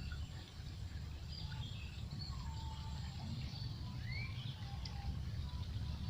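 Outdoor riverside ambience: a steady low rumble with scattered bird chirps over it, one rising call about four seconds in.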